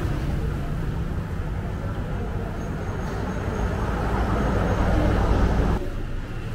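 Busy railway station ambience: a steady low rumble of engines and traffic that swells and then drops off sharply near the end.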